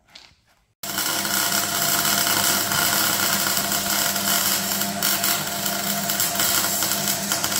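Electric arc welding: a steady, dense crackle that starts abruptly about a second in and runs on evenly. It is the welder filling the spider gears of an open differential with weld, locking the diff solid.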